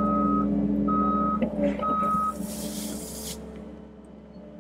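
Heavy equipment's backup alarm beeping four times, about once a second, over a steadily running engine. After the beeps stop there is a short burst of hiss, and the engine sound then drops away.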